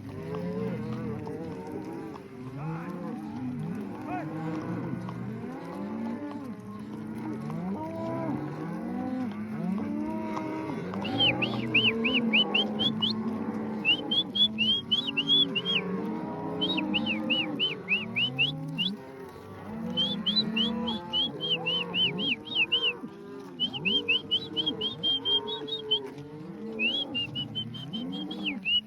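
A herd of beef cows and calves mooing and bawling, many at once and overlapping, as they are trailed along. From about a third of the way in, runs of short, quick high whistled notes come and go above the herd.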